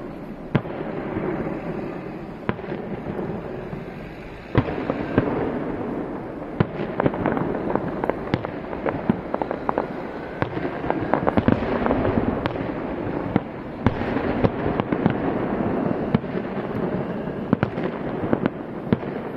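Aerial firework shells bursting in a display: many sharp bangs over continuous crackling. A loud bang comes about four and a half seconds in, and the bangs come thicker through the second half.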